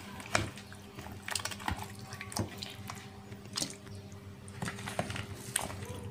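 Wet, squelching plops and sharp clicks as marinated chicken pieces are scraped from a plastic bowl with a spatula and dropped into a wok, a dozen or so irregular knocks.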